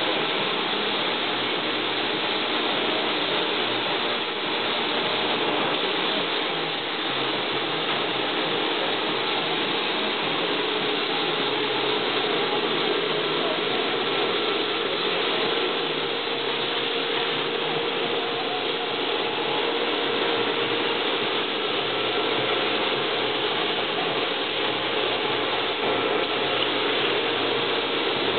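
Steady hiss of a compressed-air paint spray gun laying metal-flake paint onto a boat hull, running without a break.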